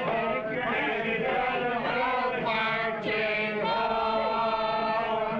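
A roomful of people singing and chanting together, many voices overlapping, settling into a held note toward the end.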